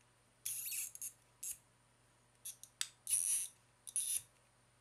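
Plastic wedges of a Rubik's Snake puzzle being twisted by hand: a series of short clicking, rasping bursts as the segments rotate against each other, about five of them, the longest a little past three seconds in.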